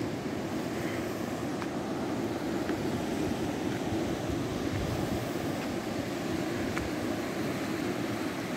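Steady rush of ocean surf breaking on a rocky shore, with wind on the microphone.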